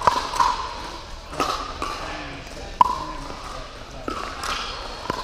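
Pickleball paddles striking a plastic pickleball in a doubles rally: a string of about seven sharp, unevenly spaced pocks, each with a short ring, the loudest a little past the middle. The hits echo in a large indoor court hall.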